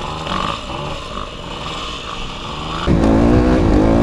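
Dirt bike engine running low and rough, then opened up sharply about three seconds in and pulling hard.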